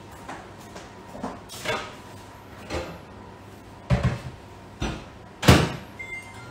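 Microwave oven door being handled: a few light knocks, then latch clunks, the loudest as the door is shut about five and a half seconds in. A short electronic beep from its keypad comes near the end.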